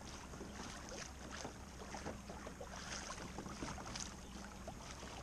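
Water lapping and splashing in small, irregular ticks against the hull of a Hobie Compass pedal kayak moving through light chop, with steady wind noise on the microphone.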